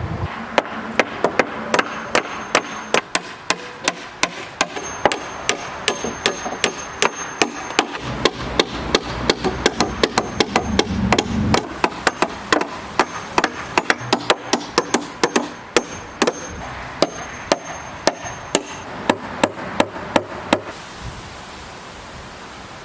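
Hammer driving nails into wooden wall framing: a long run of sharp strikes, about two to three a second in groups, stopping about twenty seconds in.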